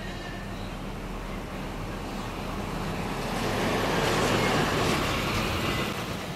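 A vehicle passing close by: a rush of road noise that swells to its loudest about four seconds in, then fades.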